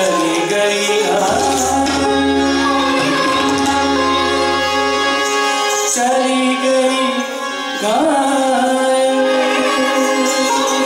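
Live Hindustani classical music accompanying Kathak dance: sitar with tabla and a singing voice, with sliding notes about a second in and again near eight seconds.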